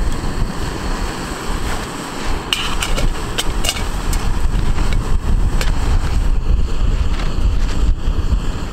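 Wind buffeting the microphone, over the steady hiss of a small screw-on gas canister stove burning. A few light clicks and knocks near the middle.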